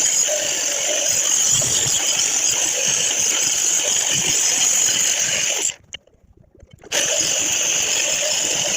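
Cut-off wheel tool running at high speed and cutting out a rotted section of a car's unibody sheet metal, with a steady high whine over hiss. It stops for about a second near the middle and then starts cutting again.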